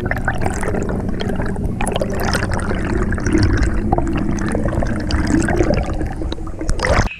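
Underwater sound picked up by the camera: bubbling and a dense crackle of short clicks over a low steady hum. It cuts off suddenly near the end.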